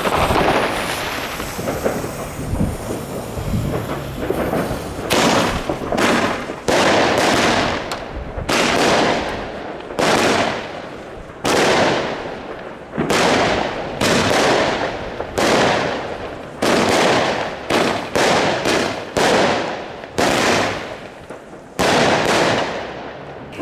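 Broekhoff Star Twister 20 mm firework cake firing its shots in quick succession. From about five seconds in, a sharp shot comes roughly once a second, each followed by a fading hiss and crackle as the twisting effects burn out.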